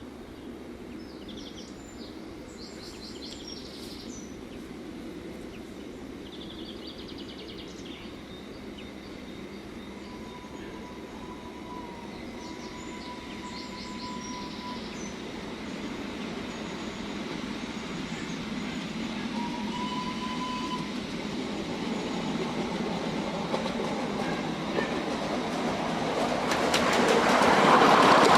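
A 7.25-inch gauge live steam model locomotive running along a miniature railway track, growing steadily louder as it approaches and loudest near the end. Birds chirp in the background.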